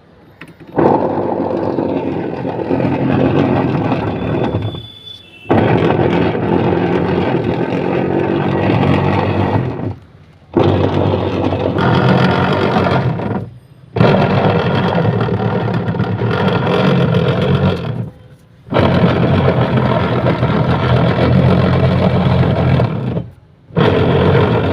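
Whirlpool washing machine wash motor running loudly in runs of about four seconds, stopping for about half a second between runs as the wash action reverses. This loud running noise is the wash-motor noise fault.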